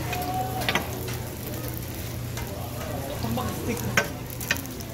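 Jeon sizzling as they fry in oil on a griddle, a steady crackling hiss. Two sharp clicks cut through it, one about a second in and one near four seconds.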